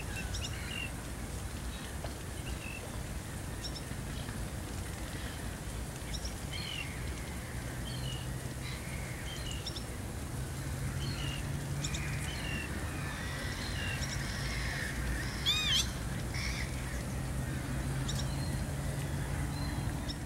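Wetland birds calling: many short, scattered calls from several birds, with one louder call about fifteen seconds in, over a low steady hum that sets in about a third of the way through.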